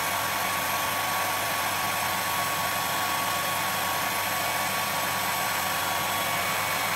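Hair dryer and vacuum cleaner running together at full power, a steady rush of air with a thin steady whine, drawing about 10.7 A through an overloaded 6 A circuit breaker.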